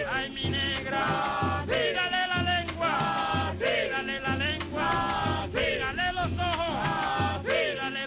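Live Venezuelan tamunangue music from Lara: a man singing phrases that slide up and down, over strummed cuatros and larger guitars of the cuatro family, with a shaken rattle. A low bass note falls in an even pulse about twice a second.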